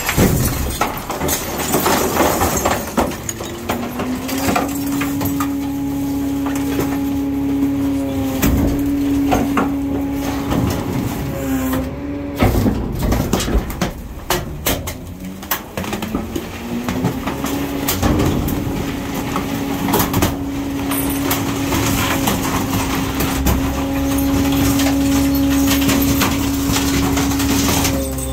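Garbage truck's hydraulic compactor cycling twice. Each time a steady mechanical whine rises in pitch and then holds, once about four seconds in and again about seventeen seconds in. Throughout, cardboard and trash knock and clatter as the packer blade drags the load into the body.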